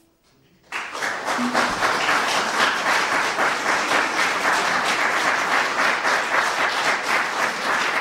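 The last note of a classical guitar dying away, then audience applause breaking out under a second in and continuing steadily.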